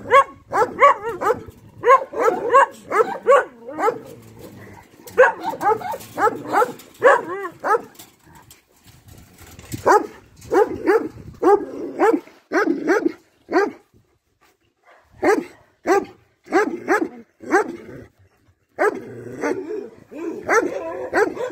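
Dogs barking over and over in runs of short barks, with brief lulls about a third of the way in and again past the middle.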